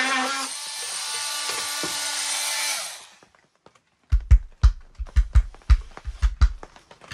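A power saw cutting through a wooden board, a steady run that fades out about three seconds in. After a short pause comes a quick, irregular series of dull knocks.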